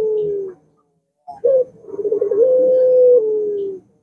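Ringneck dove ('puter') cooing. One long coo trails off with a falling pitch about half a second in. After a brief pause comes a full call: a short opening note, a quick rolling stutter, then a long held coo that dips in pitch at the end.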